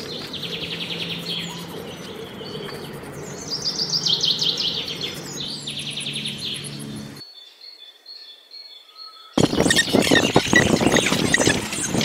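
Northern flicker calls at the nest hole: several rapid, rattling trills, over a low steady hum. They cut out about seven seconds in, and a couple of seconds later a loud, rough noise starts abruptly.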